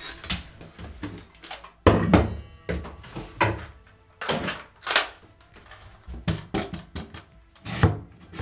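A series of irregular knocks and thumps, the loudest pair about two seconds in.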